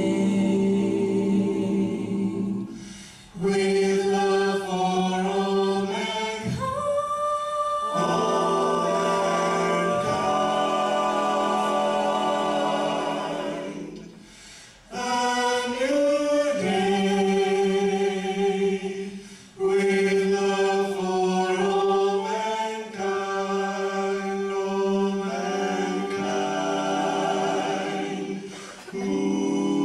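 A cappella gospel group of mixed men's, women's and a boy's voices singing in close harmony through handheld microphones. The voices pause briefly between phrases three times.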